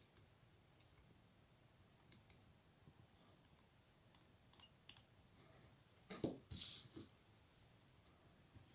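Faint clicks and small handling noises of fly tying at a vise: thread wrapped from a bobbin over a hook and fibres pinched in the fingers. About six seconds in comes a short cluster of louder knocks and rustling.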